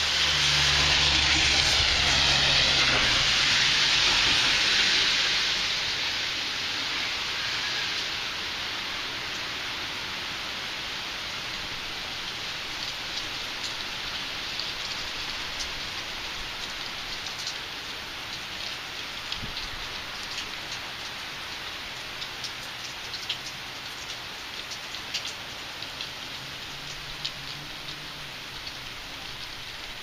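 Steady rain falling, with single drops ticking sharply now and then in the second half. Over the first few seconds a louder rush of hiss with a low engine hum swells and fades away: a vehicle passing on the wet road.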